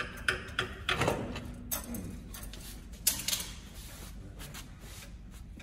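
Scattered clicks and knocks of tools and metal parts as the P-pump (fuel injection pump) on a Cummins 6BT diesel is worked loose, with a sharper knock about three seconds in.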